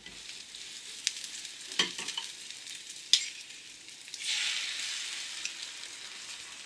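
Hot oil sizzling in a small frying pan, with a few light clicks and knocks of handling. About four seconds in the sizzle swells louder as beaten egg is poured into a hollowed-out bread slice in the pan.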